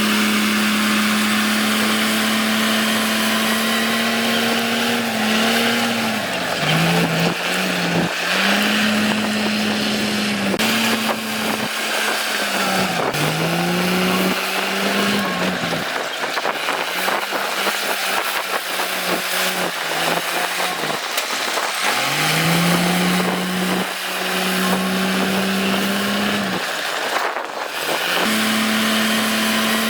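Diesel engine of a heavy construction machine running under load, its engine note dipping and climbing back several times.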